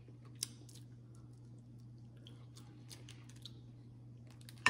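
Faint, scattered small clicks and taps of eating and handling food, over a steady low hum. There is a sharper click about half a second in and another near the end, as crab legs are picked from a glass bowl.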